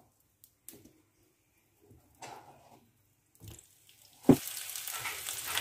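Sliced onion being laid into a frying pan of hot oil: a few soft handling noises, then about four seconds in a sharp knock, after which the oil starts sizzling steadily.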